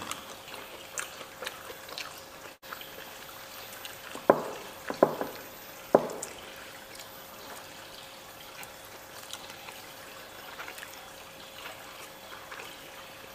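Eating by hand: soft wet chewing and lip noises, with three sharp knocks on the plates between about four and six seconds in. A faint steady hum sits underneath.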